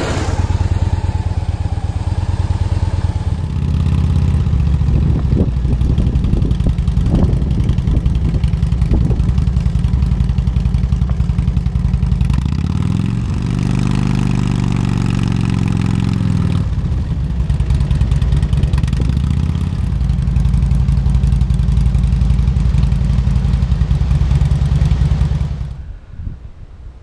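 Motorcycle engine running close to the microphone while riding, with a steady low exhaust note. About halfway through, the engine pitch rises and falls once, and the sound cuts off abruptly near the end.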